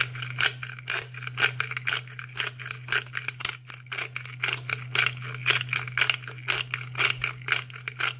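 Hand pepper grinder being twisted to grind black pepper: a fast run of dry crunching clicks, about four or five a second, that stops near the end.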